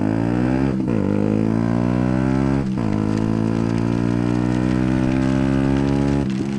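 Yamaha YZF-R125's single-cylinder four-stroke engine pulling through the gears: the note climbs, breaks briefly at upshifts about a second in and near three seconds in, then holds steady at cruise and eases off near the end.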